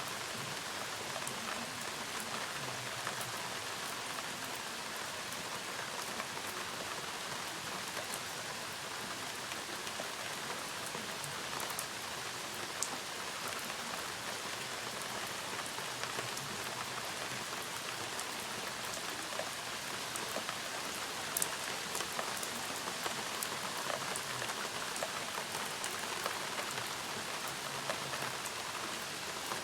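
Steady rain from a thunderstorm falling, with individual drops ticking sharply now and then, more often in the second half.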